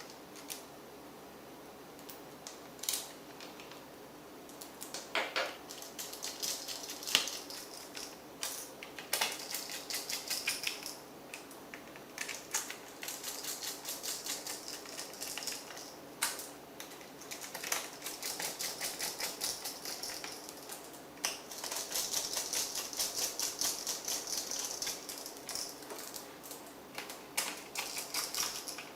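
Rapid runs of small clicks and ticks from hand work on a laptop's plastic and metal parts, with a few louder single clicks.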